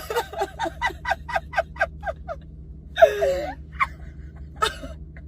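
A woman giggling in a rapid run of short "ha" notes, then a louder gasping cry about three seconds in, and a few more giggles near the end. The laughter comes as a reaction while she pushes a swab up her nose.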